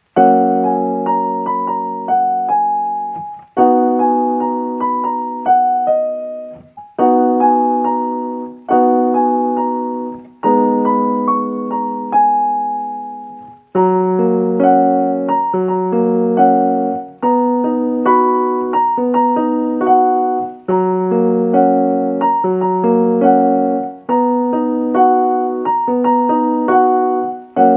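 Piano music: held chords under a simple melody, each note struck and then fading away.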